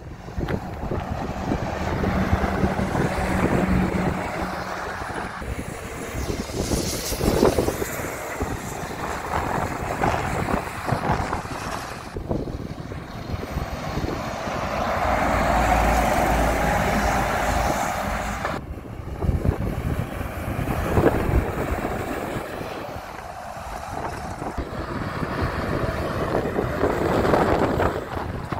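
Heavy lorries driving past one after another, with diesel engines running and tyre noise swelling and falling as each one passes. Wind buffets the microphone. The sound changes suddenly twice, about twelve and nineteen seconds in, where separate clips are joined.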